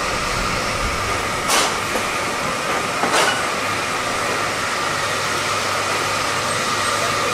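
Steady mechanical drone of a running Ferris wheel's drive machinery, with a low hum under it. Two short hisses cut through it a second or so apart.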